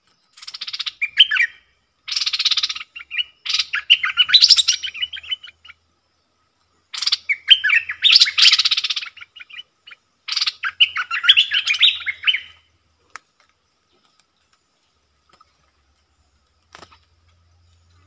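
Stripe-throated bulbul singing: five bursts of quick, chattering song, each one to two seconds long, over the first two-thirds, then only a couple of faint clicks near the end.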